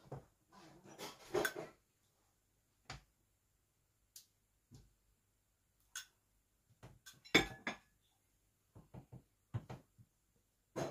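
Kitchen clatter of dishes and utensils: a series of separate clinks and knocks at irregular intervals, the loudest a quick cluster about seven seconds in.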